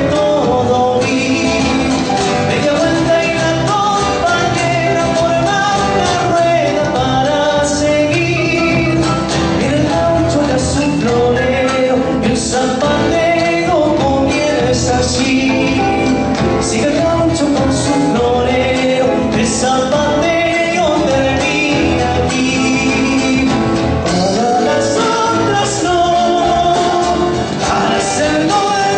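Live band playing a song in a folk and rock fusion: a man singing over electric and acoustic guitars, electric bass and a drum kit with cymbals.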